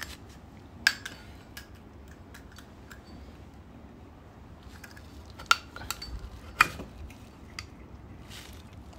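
Sharp metallic clicks and clinks from Zippo lighters being handled, four loud ones and several fainter ones scattered through a few seconds.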